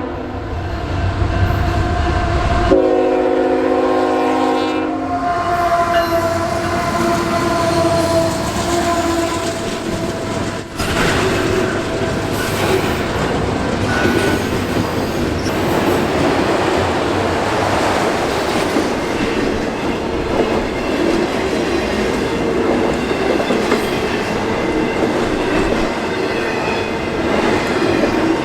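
Freight train led by a GE diesel locomotive passing, sounding a multi-note air horn: one blast ends just as it starts and a second runs from about three to five seconds in. After that the locomotive's engine gives way to a long string of freight cars rolling by with steady wheel clatter.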